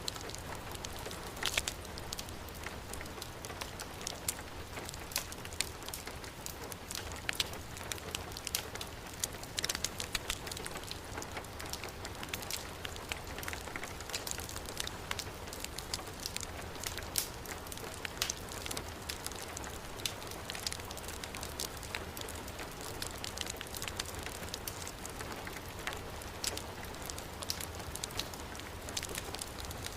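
Steady heavy rain falling, mixed with a wood fire burning in a fireplace, its crackles and pops sounding as scattered sharp clicks over the even hiss of the rain.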